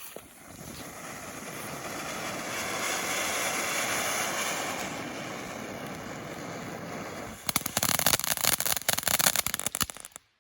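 Small World Class 'frog' novelty firework burning: a steady spraying hiss that builds over the first few seconds, then a burst of dense rapid crackling for the last three seconds before it stops abruptly.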